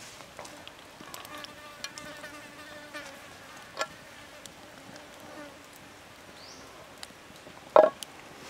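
Wood fire crackling under a pan of heating oil, with scattered sharp pops, and a low buzzing hum through the first half. A louder knock comes near the end.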